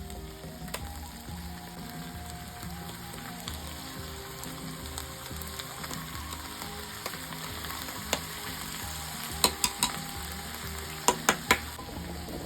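Food frying and sizzling in a pan as it is stirred, with six sharp knocks near the end in two quick runs of three. Soft background music plays underneath.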